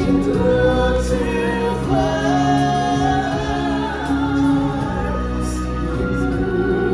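Music with singing voices, sung together like a choir, carrying a melody over steady held notes.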